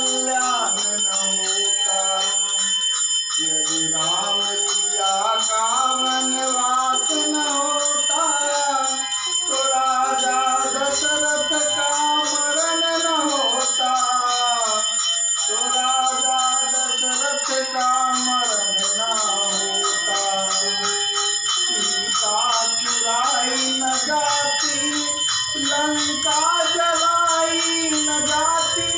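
A man singing a devotional bhajan melody to harmonium accompaniment, with small hand cymbals (manjira) jingling steadily throughout.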